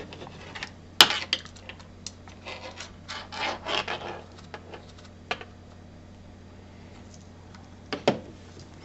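Light clicks and rubbing of small brass SMA connectors and a coax lead being handled and fitted to the nanoVNA's port, with a sharp click about a second in, a run of small clicks over the next few seconds, and two clicks near the end.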